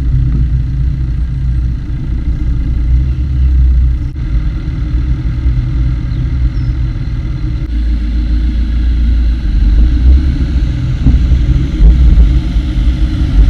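Wind buffeting the microphone of a camera carried on a moving mountain bike, giving a loud, fluctuating low rumble.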